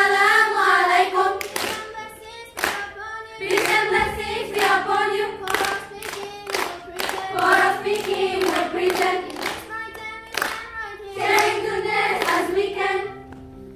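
Girls' choir singing a song in unison, punctuated by sharp hand claps, over sustained low accompaniment notes.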